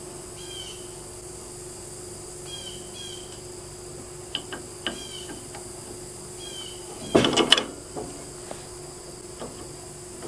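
Steel washers and a spacer clinking against the mower's front axle spindle as they are fitted, with a couple of faint clicks and then a short, loud flurry of metal knocks about seven seconds in. Birds chirp briefly now and then over a faint steady hum.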